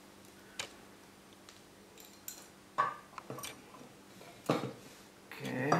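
A few scattered light clicks and taps of handling a wristwatch and a knife, as the knife is used to cut a fitting off the watch.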